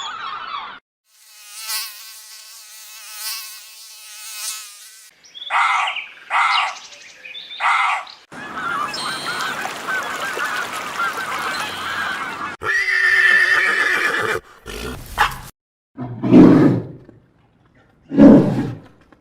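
A string of different animal sounds cut one after another: a buzzing insect-like drone, three short calls, a few seconds of noisy chatter, then two loud, low calls near the end.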